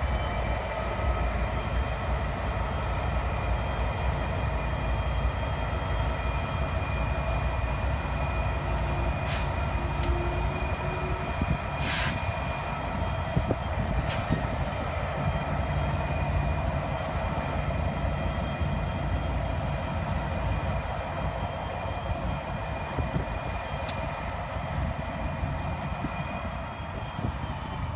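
Norfolk Southern diesel locomotives working a freight train past at low speed: a steady engine drone with a deep rumble and several held tones. A few sharp clicks come around ten and twelve seconds in and once near the end, and the sound eases slightly as the engines move away.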